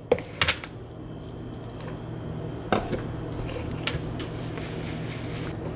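Sugar being sifted through a sieve: a steady rubbing, scraping sound, with a few sharp taps near the start and twice more midway.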